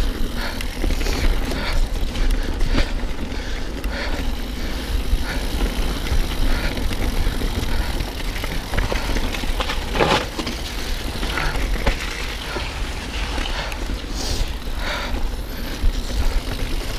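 Mountain bike being ridden on a wet trail: tyres rolling over the ground and the bike's parts knocking and rattling many times over bumps, over a steady low rumble.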